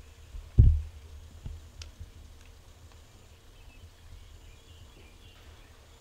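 A single low, dull thump about half a second in, followed by two softer knocks, over faint outdoor background noise.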